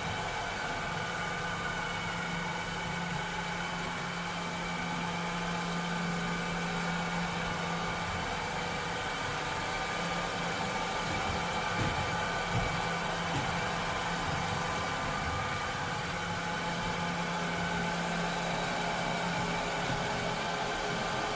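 Cleaning robot running steadily: an even motor drone with a low hum and several high steady whines, and a few soft bumps about twelve seconds in.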